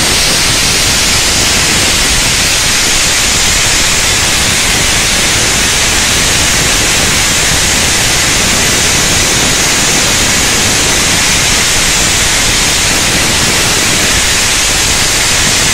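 A loud, steady hiss of noise that keeps an even level and does not change.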